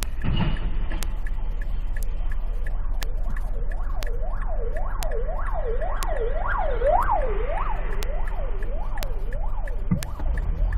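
Emergency vehicle siren in a fast yelp, its pitch sweeping up and down about twice a second, growing louder to a peak partway through and then fading, over a steady low road rumble.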